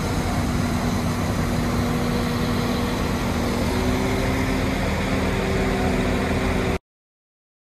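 Northern passenger train running at a station platform: a steady engine hum with a few held tones, one of which shifts down in pitch about halfway. It cuts off abruptly near the end.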